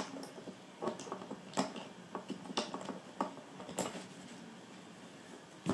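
About half a dozen light clicks and taps, spaced roughly half a second to a second apart, from handling the suitcase and its handle-mounting hardware.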